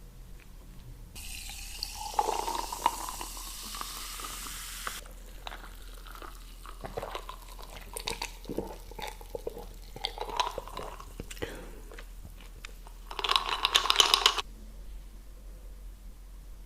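Water running in a kitchen: a stream runs for about four seconds and stops sharply, then scattered clicks and knocks of handling, then a louder, shorter burst of running water near the end.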